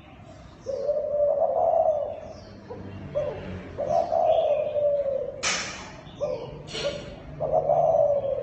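Spotted dove of the Thai cooing strain calling, a series of low, drawn-out coos repeated every second or so. Two short bursts of hiss-like noise sound in the middle, and faint chirps of small birds sit higher up.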